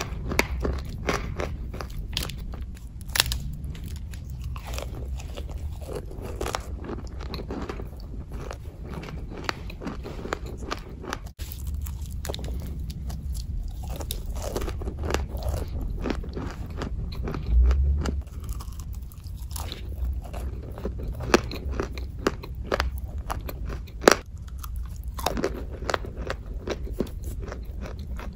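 Close-up biting and chewing of a dry, crumbly, chalk-like grey block: a dense run of sharp crunches and crackles, with a few louder bites, over a steady low rumble.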